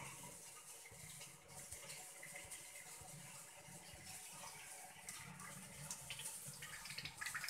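Faint running water, low and steady.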